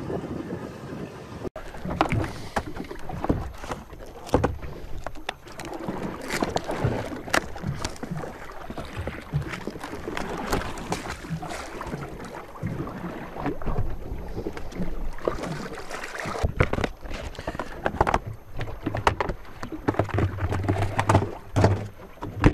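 Irregular knocks, clatter and rustling as gear is handled on a fiberglass boat deck: a deck hatch lid is opened and a bag is handled.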